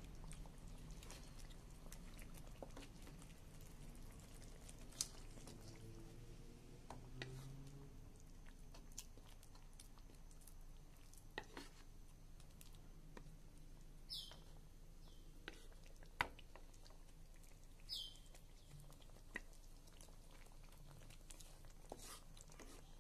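Faint, sparse pops and crackles of thick tomato sauce simmering around fried fish in a wok, with a few sharper clicks of a wooden spatula against the pan and two short high squeaks.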